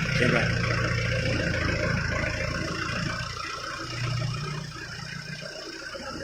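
CNC router running, its air-cooled spindle giving a steady high whine over a mechanical hum. The sound eases off a little past halfway through.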